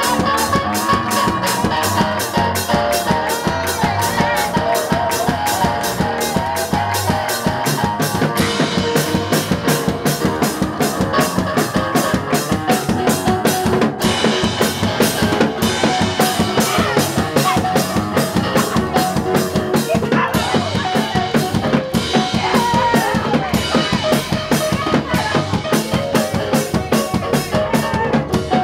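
Live gospel praise-break music: a drum kit plays a fast, steady beat on bass drum, snare and cymbals under sustained chords from an electric keyboard.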